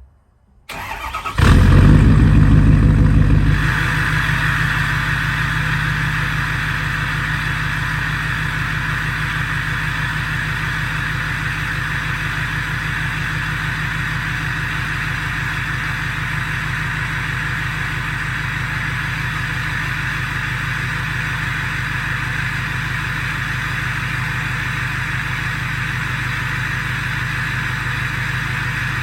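2015 Ford F250's 6.7 Powerstroke V8 turbodiesel, with a KC Stage 1 turbo and 4" exhaust, firing up about a second in. It runs loudest for a couple of seconds after it catches, then settles into a steady idle.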